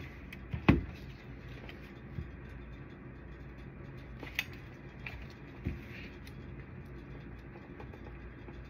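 Plastic clicks and knocks of a copier drum unit cartridge being handled and turned over, with the loudest knock about a second in, over a steady low hum.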